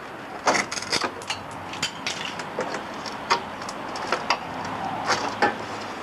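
Irregular knocks, taps and scrapes of gloved hands and a hand tool working on a wooden greenhouse frame and its glass panes. A few of the taps ring briefly.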